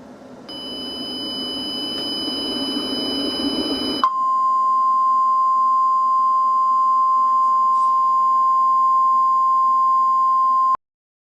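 A rushing noise that swells for about four seconds under several steady high-pitched tones. It gives way to a single steady 1050 Hz alert tone lasting about seven seconds and cutting off abruptly: the NOAA Weather Radio warning alarm that announces a warning message.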